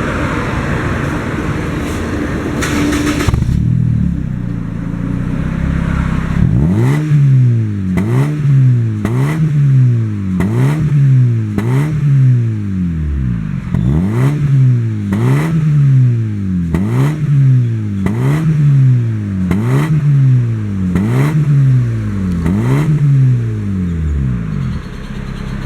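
Honda Civic FD 1.8's four-cylinder engine running through an aftermarket middle and rear muffler exhaust: idling at first, then from about seven seconds in, quick repeated throttle blips, each rev rising and falling, about one and a half a second, with a brief pause around the middle.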